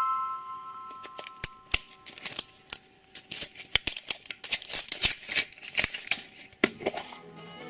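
Plastic wrapper crinkling and crackling in irregular sharp clicks and rustles as it is peeled off a plastic surprise-egg capsule. A music chord fades out during the first two seconds.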